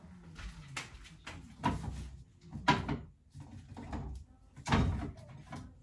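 Groceries being put away in a fridge: a handful of separate knocks and clatters as containers are set onto the shelves and door bins. The loudest knock comes about halfway through.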